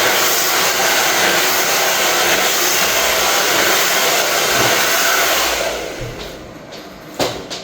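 Hair dryer blowing steadily, dying away about six seconds in, followed by a couple of short knocks.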